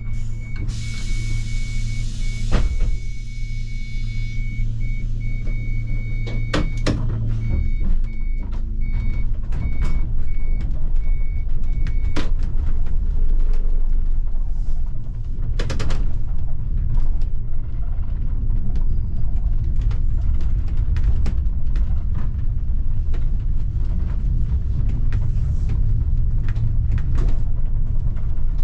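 City bus engine heard from the driver's cab, running with a steady low hum for the first several seconds, then giving way to broader engine and road noise as the bus drives on. A high beeping tone pulses on and off through the first twelve seconds and starts again at the very end. There is a brief hiss near the start and a few sharp knocks.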